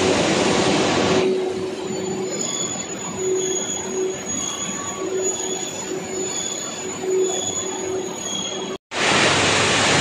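Plastic roofing-sheet production line running: a steady machine hum with a high whine and a faint squeal that repeats a little more than once a second. A loud hiss fills about the first second, and another sets in near the end after a brief dropout.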